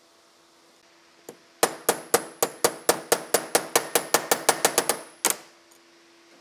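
Rapid metallic tapping: one lone tap, then about twenty quick, ringing strikes over nearly four seconds, coming slightly faster toward the end before stopping.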